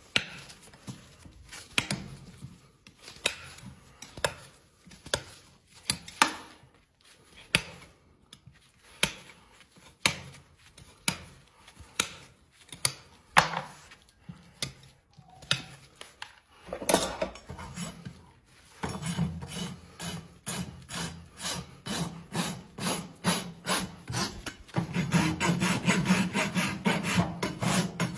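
Hand tools scraping a horse's hoof: separate strokes about once a second, then from about two-thirds through, quicker back-and-forth strokes of a hoof rasp filing the hoof.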